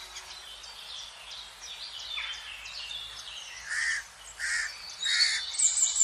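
Three short raspy calls from hooded crows at the nest in the second half, about half a second apart, over constant high twittering of small songbirds.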